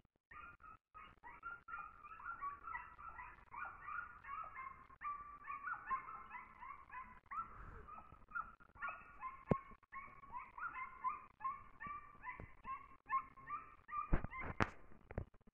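Scent hound baying on the trail of a hare: a long, fast run of short high yelps, with sharp knocks about nine and a half seconds in and near the end.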